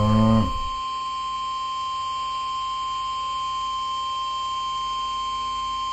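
NOAA Weather Radio 1050 Hz warning alarm tone: a steady single-pitched tone sounding to announce a severe weather warning. In the first half second a brief, louder pitched sound with a bending pitch sounds over it.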